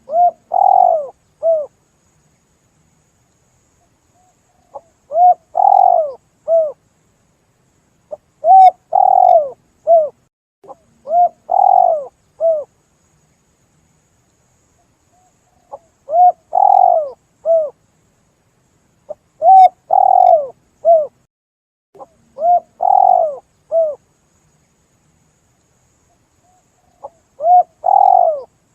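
Spotted dove (tekukur) cooing: loud, clear three-note coo phrases repeated every few seconds, each a short lead-in note, a longer stressed note and a short closing note, with silence between phrases.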